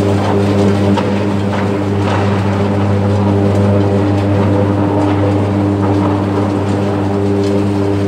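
Electric arc furnace running, its graphite electrodes arcing into the charge: a loud, steady deep electrical buzz with a rough crackle over it.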